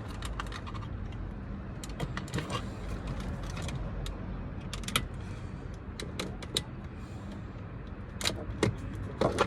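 Scattered small clicks and knocks of plastic trim, retaining tabs and hand tools being handled as a power-window switch is worked out of a 2003 Honda Accord's door trim, over a steady low hum.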